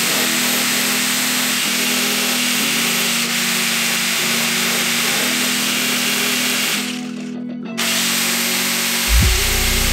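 Background music with a steady bass line over an electric angle grinder with a sanding disc running against sheet-steel bodywork; the high hiss drops away briefly about seven seconds in.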